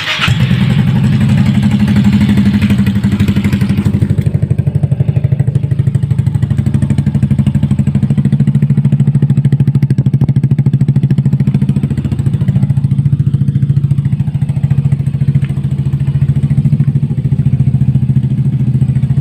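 Yamaha Mio i 125S scooter's single-cylinder engine starting up right at the start, then idling steadily and evenly through an Akrapovič Hexatip muffler run open pipe with its dB killer silencer removed.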